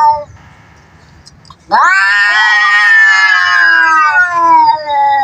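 Cat yowling. A call cuts off at the very start, and after a pause of about a second and a half one long drawn-out yowl begins and slowly sinks in pitch. It is the threatening caterwaul of a cat squaring up to fight.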